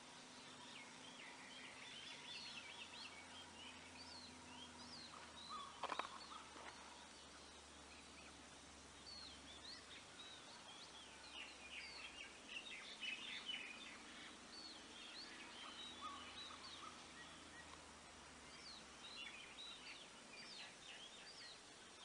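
Faint outdoor ambience with small birds chirping in many short, quick calls, and one brief sharper sound about six seconds in.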